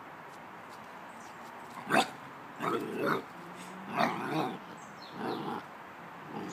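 A dog barking: one sharp bark about two seconds in, then three or four shorter barks at roughly one-second intervals, the last one faint.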